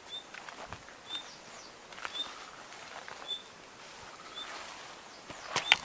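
A bird repeating a short, high chirp about once a second, five times, over a quiet outdoor background. Footsteps crackle through brush, with a few loud twig snaps near the end.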